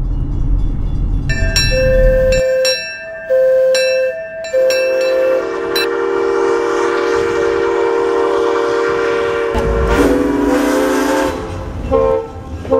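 Locomotive air horns sounding a series of blasts: two shorter blasts, then a long one, then a deeper horn chord about ten seconds in. A low rumble from the train runs under the first two seconds.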